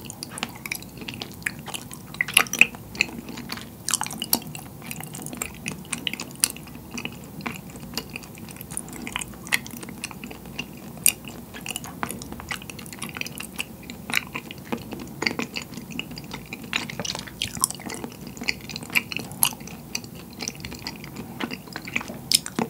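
Close-miked chewing of chewy black tapioca pearls from a milk tea, a steady run of irregular wet mouth clicks several times a second.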